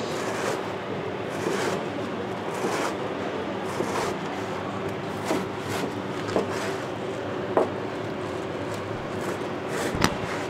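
A large knife cutting through a slab of crisp oranda snack, a short crunch and knock on the board about every second, with the sharpest knocks late on, over steady background noise with a faint low hum.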